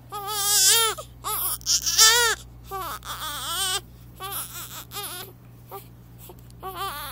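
A baby crying in a series of short wails, the loudest in the first two seconds, then shorter, weaker cries with gaps between them.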